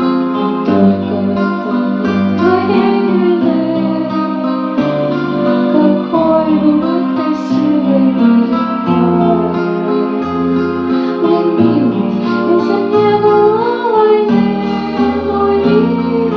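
Song: a woman singing a slow melody over guitar accompaniment, with bass notes changing about once a second.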